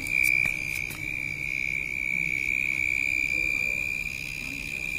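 Insects trilling: one continuous high-pitched tone that holds steady in pitch, with a few sharp clicks in the first second.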